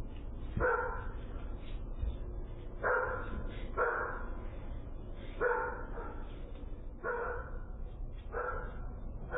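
A dog barking, single barks every one to two seconds, six in all, over a steady low background noise.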